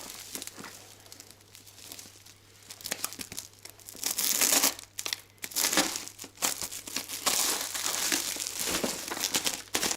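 A parcel's packaging being torn open and crinkled by hand: faint and sparse at first, then dense crackling and tearing with many sharp clicks from about three seconds in.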